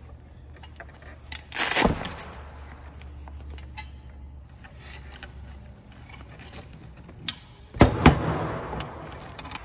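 Handling noise from an aluminium scuba backplate and its padded harness being lifted and turned over on a wooden bench: a short rustling scrape about two seconds in, then two sharp knocks close together near eight seconds followed by more rustling.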